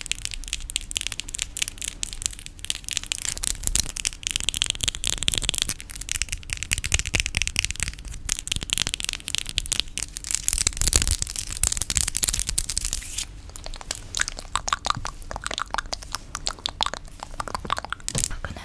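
Close-miked ASMR tapping and scratching: a dense run of rapid, crackling clicks. About thirteen seconds in it thins into fewer, more distinct taps.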